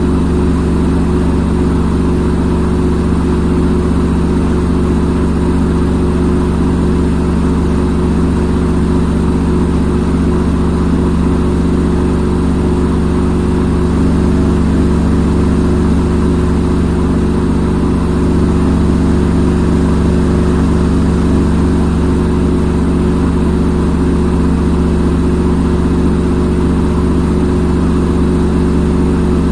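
Front-load washing machine on its spin cycle: the drum spinning at steady speed with a constant low motor hum.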